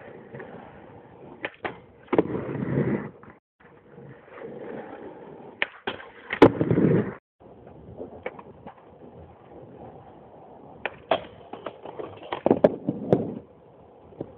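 Skateboard wheels rolling on concrete, with sharp clacks and impacts of the board hitting the ground and a low metal rail as tricks are tried, over several short attempts; the loudest hit comes about six and a half seconds in.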